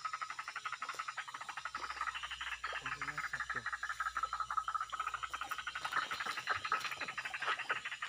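A steady chorus of calling animals: a rapid, even pulsing that goes on without a break.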